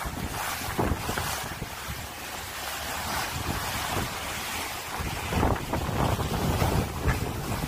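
Wind buffeting the microphone over the rush and splash of water along a sailing yacht's hull as it heels and cuts through choppy sea. The gusts swell stronger a little past halfway.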